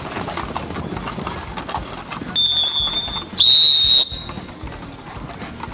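Referee's whistle blown twice in quick succession, a short shrill blast followed at once by a slightly louder one, the signal in ring-sport bite work to end the attack on the decoy.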